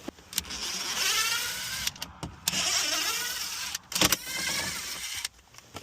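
A small electric motor whining in three short runs, its pitch curving up and down within each run.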